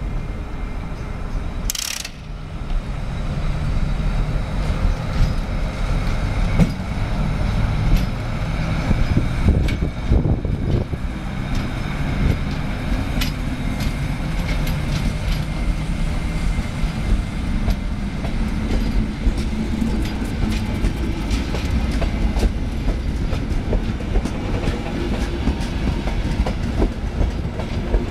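SŽ class 342 electric locomotive pulling a passenger train out and past, then the coaches rolling by with a low rumble and wheels clicking over rail joints and points. A brief sharp hiss about two seconds in.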